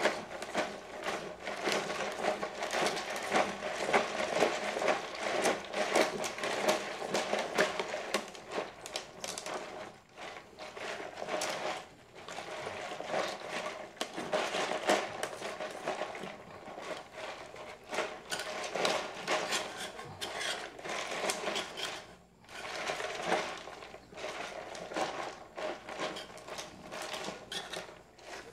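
A utensil scraping half-frozen banana and strawberry nieve loose from the walls of the ice-cream container: a steady run of rough scraping strokes, pausing briefly a few times.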